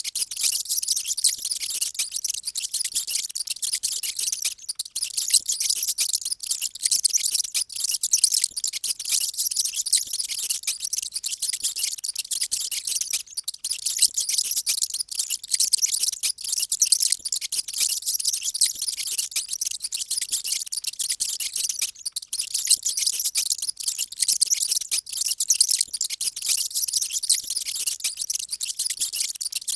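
Many mice squeaking at once: a dense, continuous mass of high-pitched squeaks that never lets up.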